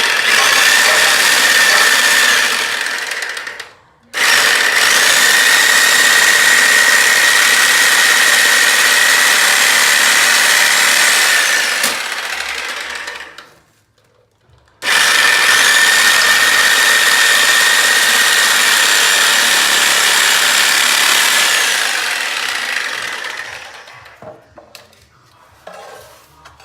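Reciprocating saw (Sawzall) with a metal-cutting blade cutting through a PVC toilet flange ring, running in three bursts: a short one, then two long runs of about nine seconds. Each burst winds down as the trigger is let go.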